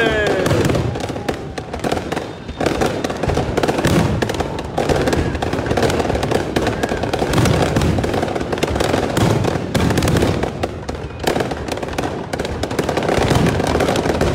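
Aerial fireworks going off in a dense barrage: a continuous rattle of bursts and crackles, many per second, with deeper booms every few seconds.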